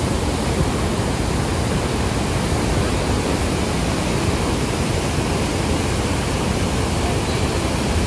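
The Rhine Falls: white water pouring and crashing over rocks in a steady, loud rush.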